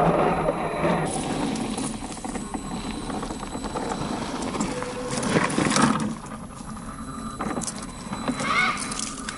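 Tamiya CC-01 radio-controlled crawler driving: its 55-turn brushed electric motor and gearbox whirring, with scattered clicks and knocks from the tyres and chassis over dirt and rock.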